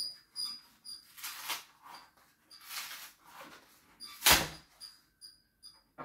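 Flat cardboard shipping package being worked open by hand: a run of short scraping and tearing strokes with a squeak to them, the loudest about four seconds in.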